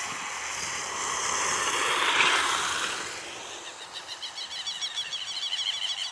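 A passing vehicle's noise swells to a peak about two seconds in and then fades. From about four seconds on comes a fast run of high chirps, several a second.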